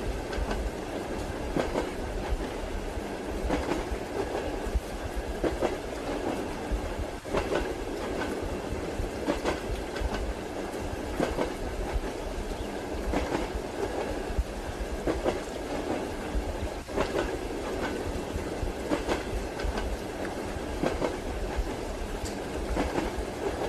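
Train wheels clacking over rail joints in a steady rhythm, a clack about every two seconds, over the continuous rumble of a moving railway carriage.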